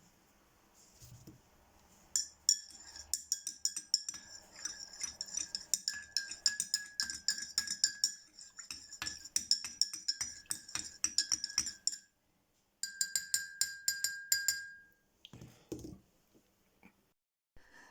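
A spoon stirring in a glass, clinking against the side several times a second with a ringing tone. It pauses about twelve seconds in, then clinks again briefly.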